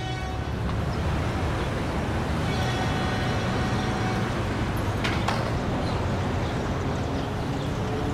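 Steady urban traffic noise, a low rumble of passing vehicles, with one sharp knock about five seconds in.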